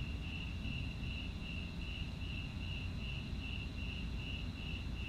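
A cricket chirping in a steady rhythm, about two to three high chirps a second, over a low background hum.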